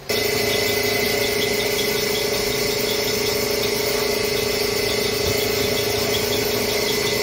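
2012 Chevrolet Avalanche engine idling with a steady high whine, its transmission pump pushing fluid out through the disconnected cooler line during a cooler flush.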